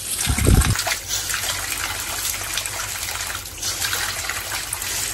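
Tap water pouring steadily and splashing over vegetables on a tiled worktop, with a brief low thump about half a second in.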